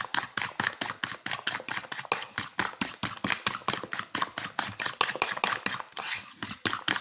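A spoon beating cake batter in a mug, clinking rapidly and steadily against the mug's sides at about six strokes a second.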